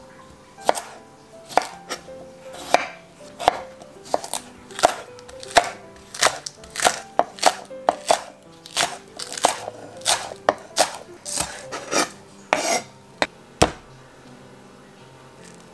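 Chef's knife chopping cucumber and green onions on a wooden cutting board, each cut a sharp knock on the board. The cuts come one at a time at first, then in quicker runs, and stop near the end.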